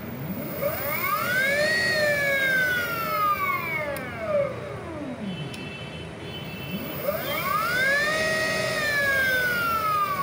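A 60-volt 2 kW electric motor spun up by its controller and let run down, twice: a whine with several pitches at once that rises as the motor speeds up, peaks and falls as it slows. The second run holds near top speed for about a second before falling away.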